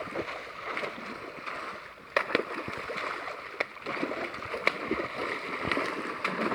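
Water splashing and sloshing as people wade and haul in a fishing net, with irregular sharp splashes over a steady rush of water.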